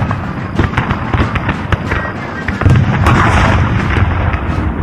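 Battle soundtrack of dense, irregular gunfire and booms, with a louder blast about three seconds in, over background music.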